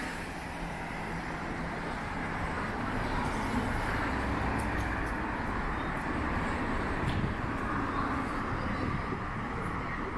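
City street ambience: a steady wash of road traffic noise from passing cars.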